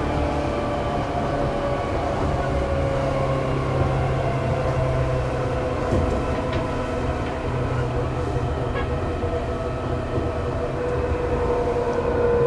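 Seibu 2000 series electric train running, its armature-chopper traction equipment and motors whining in several tones that slowly fall in pitch as the train slows, over a steady rumble from the wheels and track with an occasional knock.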